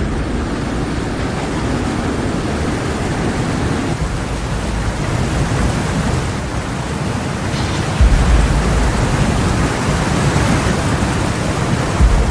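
Floodwater in a swollen river rushing as a loud, steady wash of noise, with a deep rumbling surge about eight seconds in and another near the end.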